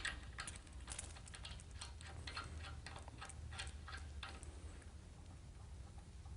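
Faint, irregular light clicking and ticking of a hydraulic hose fitting being handled and connected by hand, several clicks a second, dying away after about four and a half seconds, over a low steady hum.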